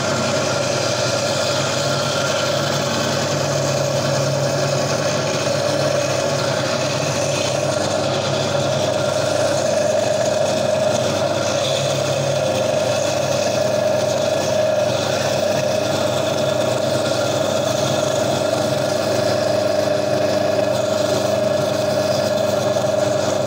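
Gryphon diamond bandsaw running at a steady pitch while its blade cuts through the stony skeleton of a Lobophyllia coral.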